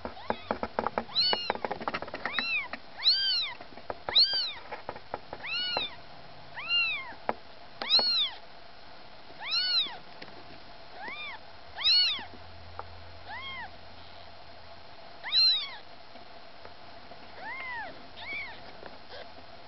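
Newborn kittens mewing: thin, high-pitched cries, one about every second, each rising and then falling in pitch. A patter of small clicks in the first couple of seconds.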